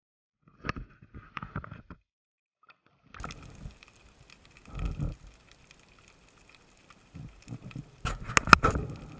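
Underwater handling noise close to the camera: irregular knocks, clicks and water movement from a spearfisher handling a speared white sea bream and the shooting line. A faint steady high tone sits behind them from about three seconds in, and the loudest burst of knocks comes near the end.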